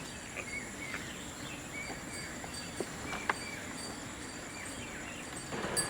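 Farmyard ambience: short bird chirps now and then over a steady high insect drone, with two sharp clicks about three seconds in.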